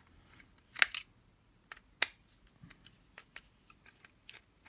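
Screwdriver working the small silver screws on the back of a cooker switch and socket plate, making scattered light metallic clicks and ticks. The sharpest come as a quick cluster about a second in and a single click at two seconds.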